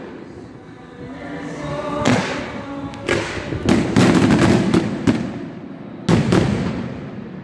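Fireworks bursting overhead in a string of booms: one about two seconds in, a quick cluster around three to four seconds, and a sharp one about six seconds in, each trailing off in a rumble.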